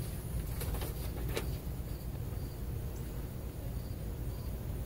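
Crickets chirping faintly, short high notes repeating about every half second, over a steady low rumble, with a few light taps in the first second and a half.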